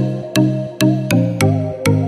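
Electronic background music with a steady beat of about two sharp clicks a second over a bass line that changes note.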